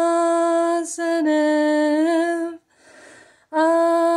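A woman singing unaccompanied, holding long notes at one steady pitch, with a short break and a breath between them.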